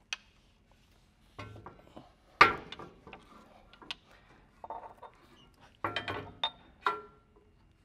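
Irregular metal clanks and knocks as a heavy winch is lifted into its steel mount and hung on the bottom bolt, some clanks ringing briefly, the loudest about two and a half seconds in and a cluster near the end.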